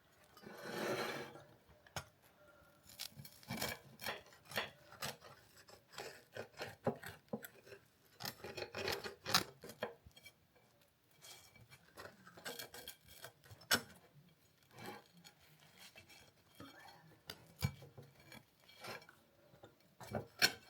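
A cooked stuffed-crust pizza being cut up. A blade scrapes through the crust, with many irregular short clicks and knocks as it meets the surface underneath.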